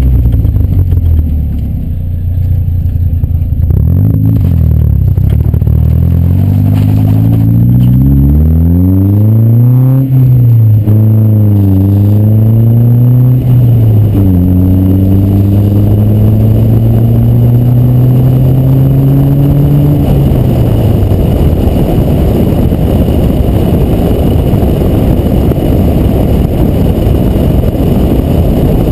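Car engine accelerating hard through the gears, its pitch climbing and dropping at each of several shifts. About two-thirds of the way through, the throttle is released and the engine fades under loud, rumbling wind noise buffeting a GoPro HERO2 in an open-back case on a suction-cup mount.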